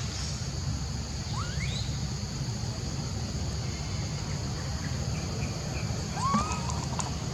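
Steady outdoor insect drone over a low rumble, with two short animal calls: a quick rising squeak about a second and a half in and a brief arched call near the end.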